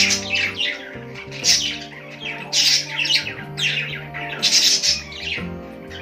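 A flock of budgerigars chirping and warbling in quick, repeated bursts of short notes, over background music with held low notes.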